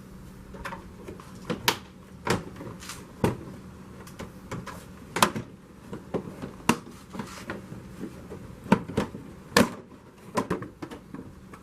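Irregular sharp clicks and knocks of hand work on a Jeep Wrangler JL's plastic inner fender liner, its push clips and screws being worked loose, over a steady low hum.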